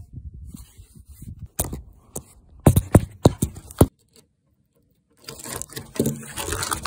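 Handling noise from a phone camera being moved and rubbed while someone crawls under a vehicle, with several sharp knocks around the middle, then a rustling scrape near the end.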